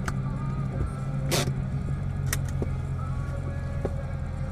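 Car engine idling while the car stands still, heard from inside the cabin, with a few sharp clicks and one brief noisy burst about a second and a half in.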